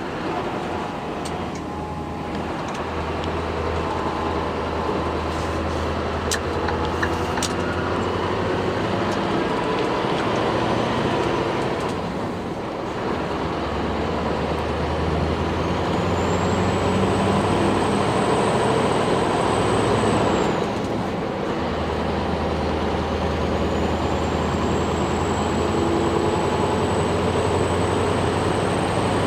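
Scania R620's 16-litre V8 diesel running on its stock exhaust, with its level dropping briefly twice, about twelve and twenty-one seconds in. A high whistle rises and then holds, twice in the second half.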